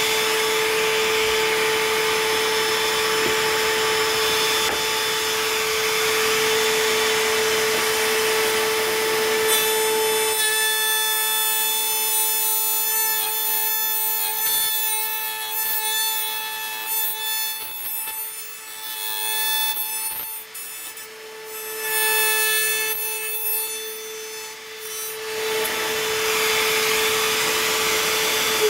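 Table-mounted router running at speed with a steady high whine. Between about ten and twenty-five seconds in, its trim bit cuts a round-over into a wooden board's corner and the sound rises and falls as the wood is fed past. The motor begins to wind down at the very end.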